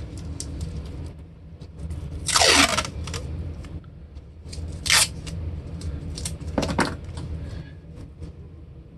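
Green painter's masking tape being pulled off its roll and handled: three loud, short ripping sounds about two and a half, five and nearly seven seconds in, the first falling in pitch, with small crackles of tape and paper handling between them.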